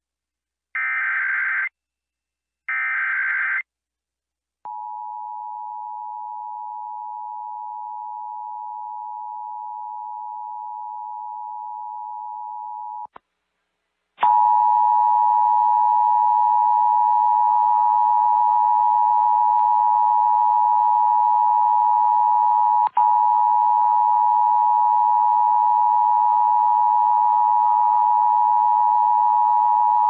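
Emergency Alert System test tones: two short, harsh SAME data bursts. Then a steady two-tone EAS attention signal holds for about eight seconds. After a brief gap, a louder, harsher alert tone runs for the rest, broken once by a click partway through.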